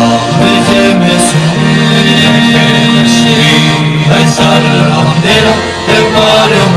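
Live habanera music from a singing group with guitar accompaniment, held notes running on without a break.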